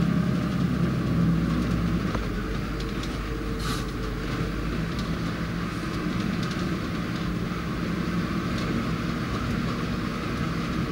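Safari vehicle's engine running as it moves slowly forward, heard from inside the cab as a steady low hum with a few light knocks from the body.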